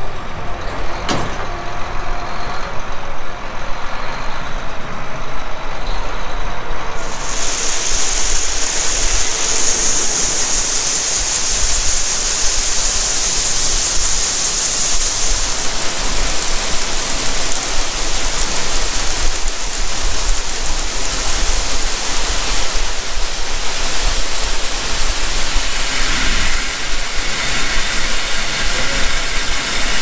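Grain cart auger unloading shelled corn into a grain trailer, with the John Deere tractor pulling the cart running alongside. A loud, steady rushing of pouring grain comes in suddenly about seven seconds in and carries on over the machinery hum.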